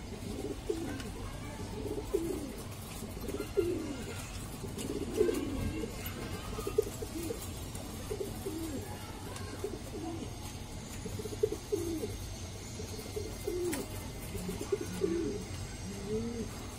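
Domestic fancy pigeons cooing. Low, rolling coos rise and fall in pitch and come about once every second or so.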